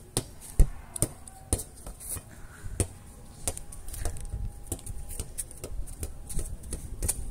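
Inflated plastic toy ball hitting concrete with one heavy thud about half a second in, followed by a few sharper knocks and scattered light taps.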